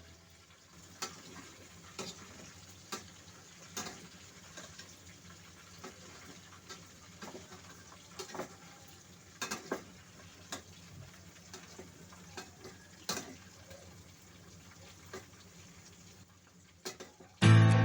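Pan cooking: a faint frying hiss with scattered sharp clicks and knocks of a utensil against the pan while the food is stirred. Guitar music comes in abruptly just before the end.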